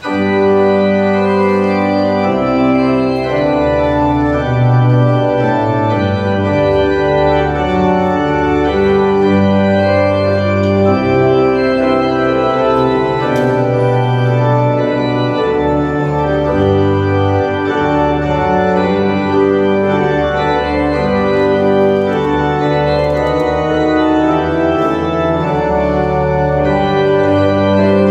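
Organ playing a slow hymn in full sustained chords, coming in suddenly and loud at the start.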